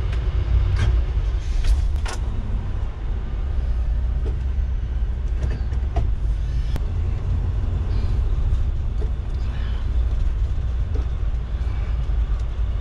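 Gasoline engine of a 1990 Fleetwood Bounder Class A motorhome idling, a steady low rumble heard from inside the cab, with a few light clicks in the first couple of seconds.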